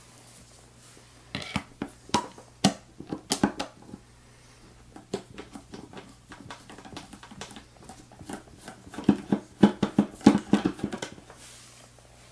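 Sharp metal clicks and taps from handling an opened American 1300 series padlock as it is being taken apart, in two busy clusters about a second in and again near the ninth second, with lighter ticks between.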